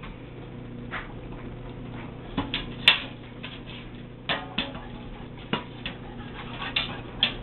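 Metal cans being handled and set down on a mat: a string of short clinks and knocks, the sharpest about three seconds in, over a faint low steady hum.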